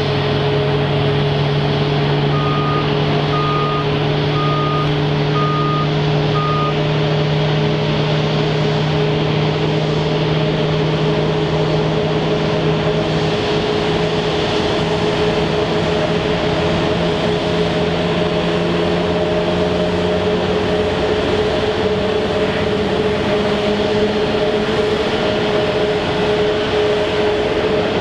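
Steady whine and drone of idling aircraft engines, with a low tone that slowly rises in pitch in the second half. A ground vehicle's reversing alarm beeps five times, about once a second, a few seconds in.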